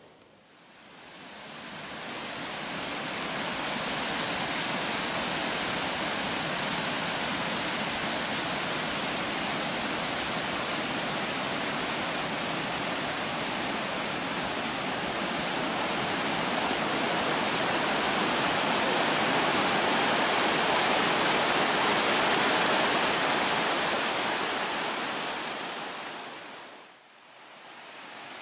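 Stream water rushing over low rock cascades, a steady rushing that fades in over the first few seconds and dips away briefly near the end.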